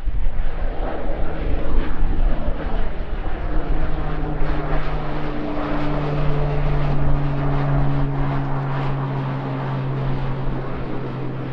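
Pilatus PC-12's single Pratt & Whitney Canada PT6A-67B turboprop at take-off power as the aircraft climbs away after lift-off: a steady propeller drone whose low tone dips slightly in pitch about halfway through, slowly getting quieter.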